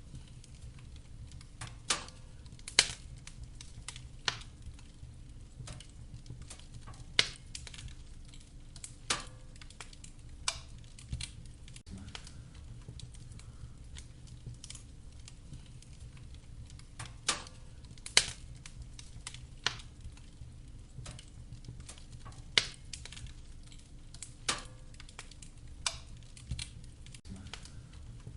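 Wood fire burning in a fireplace, crackling and popping at irregular intervals over a steady low rumble of the flames.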